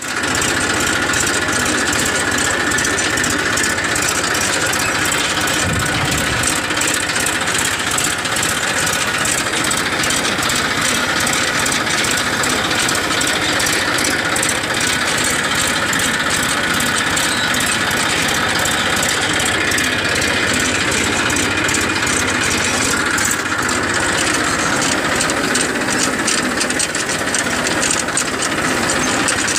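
Massey Ferguson 1035 DI tractor's three-cylinder diesel running steadily under load while pulling a cultivator through the field.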